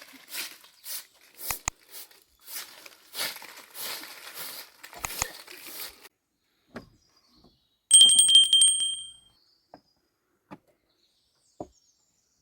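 Light rustling or scraping noises, two or three a second, for the first half. Then a bright metallic ring, struck several times in quick succession, that dies away over about a second and a half, followed by a few faint knocks.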